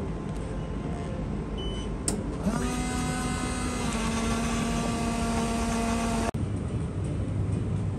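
Instant hot-drink dispenser running while it dispenses into a paper cup: a click about two seconds in, then a steady motor hum that glides up in pitch as it starts and cuts off suddenly about six seconds in.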